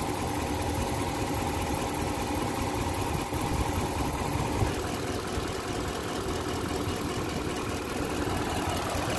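Car engine idling steadily under the open hood, newly running after its PCM was replaced and after long disuse; the mechanic calls it misfiring ("palyado").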